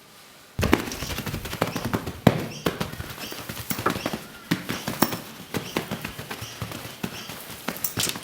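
Rapid, irregular taps and scrapes, like a metal screwdriver jabbing and scraping into dirt, starting suddenly about half a second in. Faint bird chirps sound in the background.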